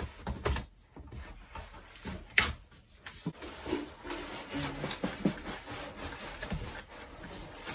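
A cardboard shipping box being opened and unpacked: scraping and rustling of cardboard and foam packing blocks being pulled out, with scattered knocks and one sharp knock about two and a half seconds in.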